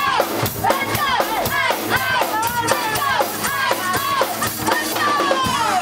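Band playing live acoustic punk rock: fast, evenly strummed guitars on a driving beat with vocals over it.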